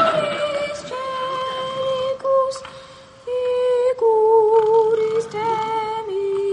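Choirboy's treble voice singing a slow solo, holding long notes that step downward one at a time, with a brief quieter stretch near the middle.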